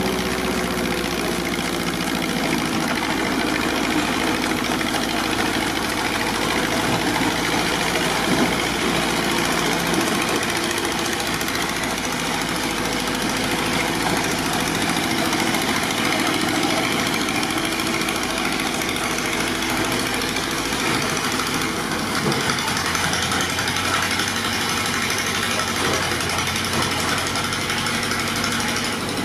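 Engine of a 1948 Schramm Model 60 crawler compressor running steadily as the crawler drives. The engine is Ford V8-based: four cylinders burn gas and the other four are converted to an air compressor.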